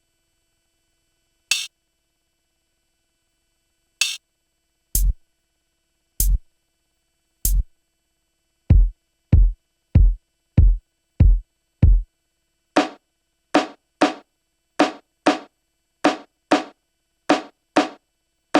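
Single drum-machine one-shots played from the Akai MPC One, with silence between hits. Two sharp, high hits come first, then kick drum hits with a deep low end, slow at first and then about one every 0.6 s. Halfway through, a run of snappier hits without the deep low end follows at the same pace.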